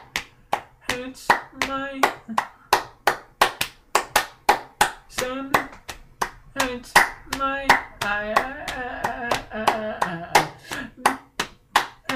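Hand claps keeping a steady beat of about four a second, with a voice singing long held notes over them.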